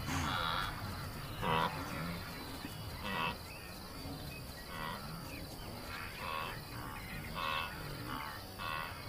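Short calls from a herd of grazing animals, repeated about every second, over a steady high insect trill.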